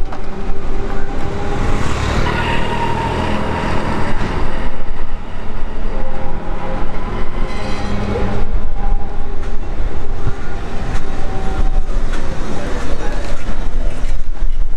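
Street trams running on street track, BN-built articulated cars, with a steady hum and whine. Passers-by chatter over the city traffic.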